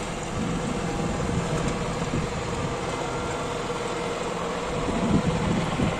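John Deere 5210 tractor's three-cylinder diesel engine running steadily under load while it pulls a rotary tiller through dry soil. The low rumble grows louder and more uneven near the end.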